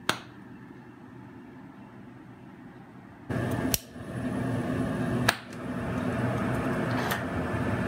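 A two-gas lampworking bead torch being lit with a hand lighter: a sharp click at the start, then about three seconds in the steady hiss of the gas and flame sets in, with two more sharp clicks, and the flame's rush grows louder after about five seconds.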